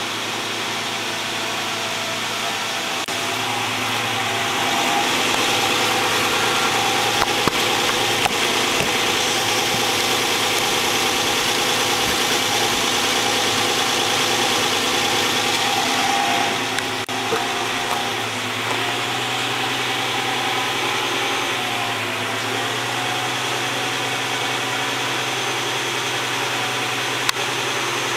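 2004 Nissan Xterra SE's V6 engine idling steadily, heard close to the exhaust, just after a start-up that left it blowing heavy white smoke and set a cylinder 6 misfire code.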